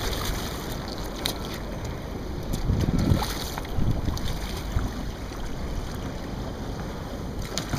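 Wind buffeting the microphone over choppy water around a boat, a steady rush with a louder low surge about three seconds in.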